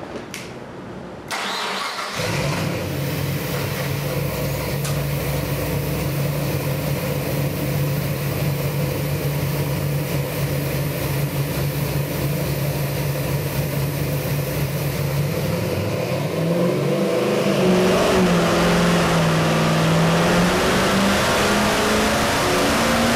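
Ford big-block stroker V8 crate engine on an engine dyno firing up about a second in, then idling steadily. Near the end a dyno pull begins and the engine revs up under load, its pitch rising.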